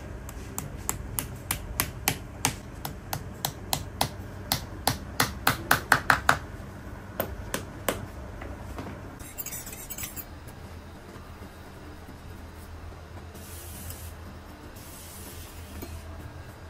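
Cobbler's hammer tapping small nails into a boot's leather sole on the last: a run of sharp, light taps that speeds up and grows loudest with a ringing note about six seconds in, then stops at about eight seconds. A short scrape follows near ten seconds.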